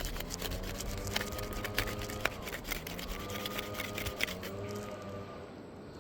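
Asphalt roof shingles being pried up from their seal strip, a rapid irregular crackling and clicking. Under it runs a steady hum whose pitch drifts slowly up and down.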